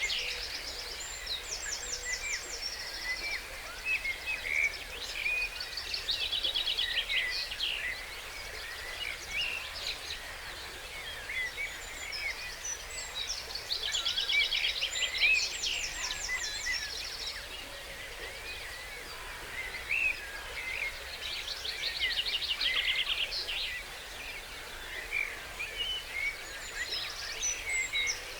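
Dawn chorus of songbirds over a steady background hiss, with one bird repeating a rapid, trilled song phrase about four times and other birds chirping and whistling in between.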